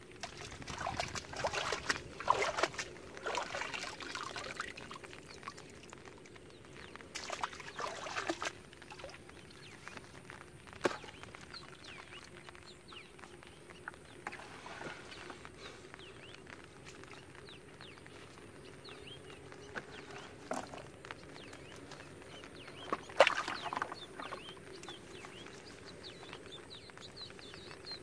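Water splashing, pouring and dripping off a fine mesh fishing net as it is lifted and gathered in shallow floodwater, coming in several irregular bursts with quieter trickling between. A single sharp knock stands out near the end.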